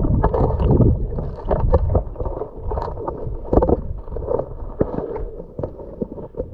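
River water sloshing and splashing, muffled, with irregular knocks.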